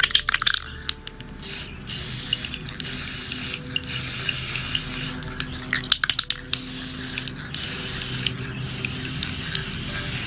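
Aerosol can of metallic mirror-finish spray paint spraying in repeated bursts of a second or two each, with short pauses and a few clicks between. The paint is going on as a reflective inner coat of plastic model parts.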